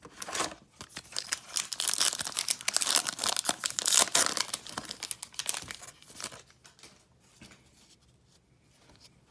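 A trading-card pack wrapper being torn open and crinkled, a dense crackling rustle that is loudest in the middle and dies away about two-thirds of the way through.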